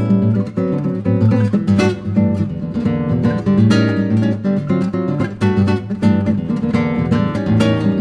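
Acoustic guitar music: a continuous run of plucked and strummed notes.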